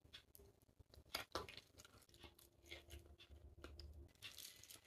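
Faint chewing of a mouthful of chicken biriyani, heard as scattered soft mouth clicks and ticks, the loudest a little over a second in.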